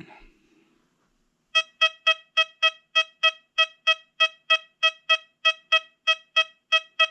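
XP Deus 2 metal detector giving its target tone for a 1991 Kennedy half dollar. It is a rapid, evenly spaced series of short, identical mid-pitched beeps, about three to four a second, starting about a second and a half in. Each beep is the detector's response as the coin is swept over the coil.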